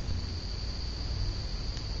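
52-inch SMC Laguna ceiling fan running steadily: a low hum with a constant high-pitched whine above it.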